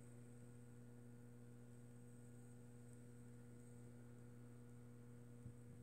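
Near silence: room tone with a faint steady electrical hum, and a soft tap near the end.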